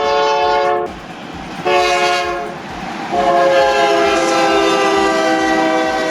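Train horn sounding three blasts, two short and then one long, over the rumble of a running train.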